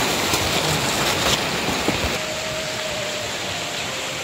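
Heavy rain falling: a steady hiss with scattered close drop ticks.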